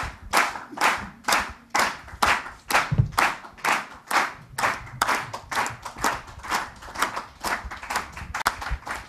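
Audience clapping in a steady, even rhythm of about three claps a second.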